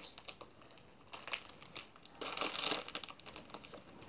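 Fleece blanket and bedding rustling as someone shifts and settles under the covers, in scattered bursts, the loudest about two and a half seconds in.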